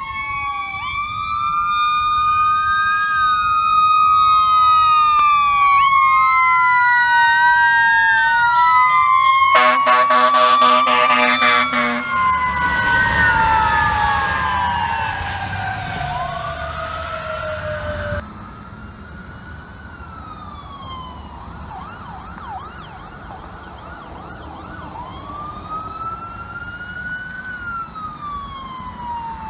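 Emergency-vehicle sirens from a fire ladder truck and an ambulance, several wailing and yelping at once as they approach and pass. A loud blaring horn sounds for about two seconds around ten seconds in, followed by one long falling siren tone as the truck goes by. After about eighteen seconds the sirens drop away sharply to fainter wails, with a brief fast yelp partway through.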